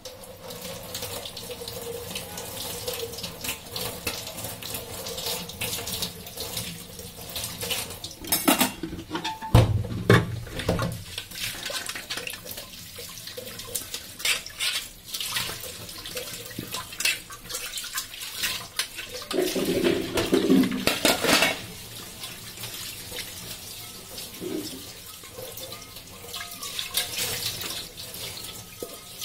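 Tap water running into a stainless steel kitchen sink as metal bowls are rinsed under it by hand, with splashing and occasional knocks of the bowls against the sink. The heaviest knock comes about ten seconds in.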